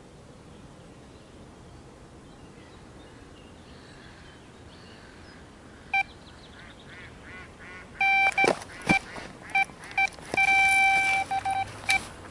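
Electronic carp bite alarm on a rod pod sounding a run. A single beep about six seconds in, then rapid beeps from about eight seconds that run together into one continuous tone as a fish takes line.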